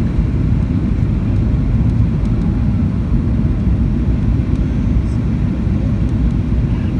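Steady low rumble of engine and airflow noise inside the cabin of a Boeing 737-800 airliner in flight near landing.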